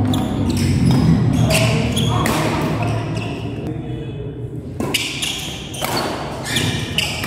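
Badminton doubles rally: a string of sharp racket strikes on the shuttlecock, with short squeaks of shoes on the court floor, in a large echoing hall with spectators' voices behind.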